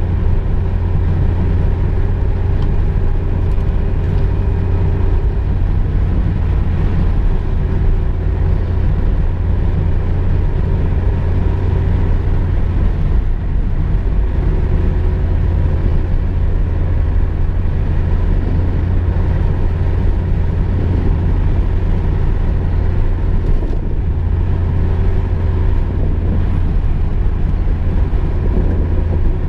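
Volkswagen Golf II driving, heard from inside the cabin: a steady low rumble of engine and road noise that holds even.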